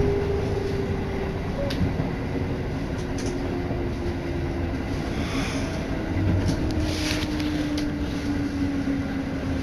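Interior running noise of a Tokaido Line electric train: a steady low rumble with the motors' whine falling slowly in pitch as the train slows, with a few light clicks.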